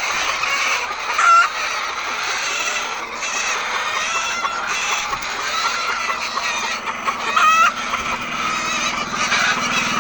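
A large flock of laying hens clucking together in a continuous chatter of overlapping calls, with louder squawks about a second in and again about seven seconds in.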